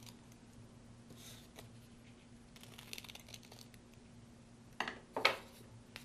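Scissors cutting through a strip of Velcro, with faint crunchy snips, then two louder short sounds near the end.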